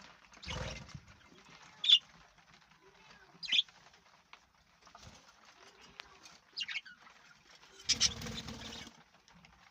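Parrots giving sharp, short chirping calls every second or two, with a couple of brief bursts of wing flapping.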